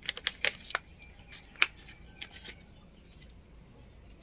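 Short, crisp crackles and clicks as fingers sprinkle the last pansy seeds over dry burnt rice husk in a woven bamboo basket, dying away after about two and a half seconds.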